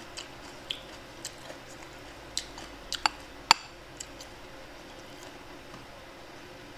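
Eating sounds: chewing, with scattered sharp clicks as chopsticks pick through a bowl of steamed fish; the loudest click comes about three and a half seconds in.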